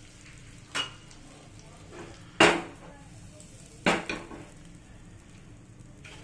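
Butter melting and foaming in a nonstick pan with a faint steady sizzle, broken by three sharp knocks of cookware. The loudest knock comes about two and a half seconds in.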